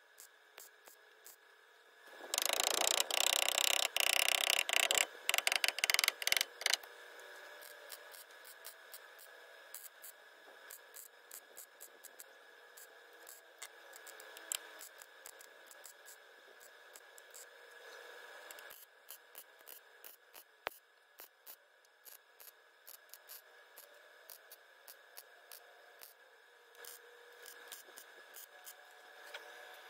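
MIG welder laying a weld on sheet-steel body panel, a loud crackle starting about two seconds in and lasting around four seconds with a few short breaks, followed by faint scattered clicks.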